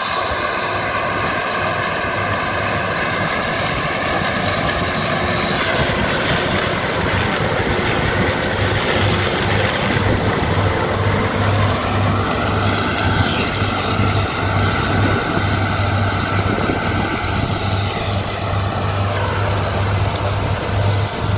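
Farm tractor engine running steadily under load, with a whine whose pitch shifts a few times and glides down near the end.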